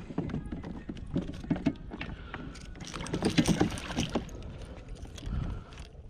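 A big hooked fish splashing and thrashing at the water's surface beside a kayak as it is lipped with a lip grip, with scattered clicks and knocks of tackle against the boat. The splashing is loudest from about three to four seconds in.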